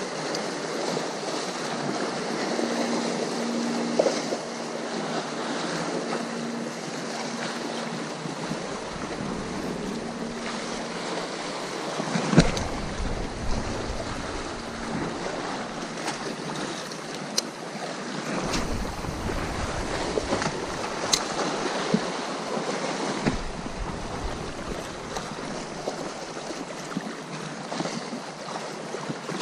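Sea surf washing steadily against the shore, with wind buffeting the microphone in deep gusts through the middle of the stretch. A faint steady hum runs through the first third, and a few sharp clicks stand out.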